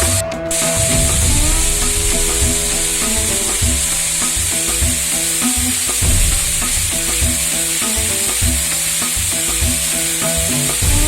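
Waterfall rushing in a constant hiss, with background music and a steady beat over it. The water noise drops out for a moment just after the start.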